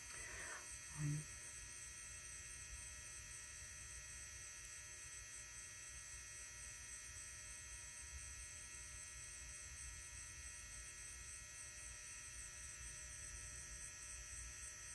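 Steady electrical hum with a thin high whine above it, unchanging throughout, with a brief murmur of a voice about a second in.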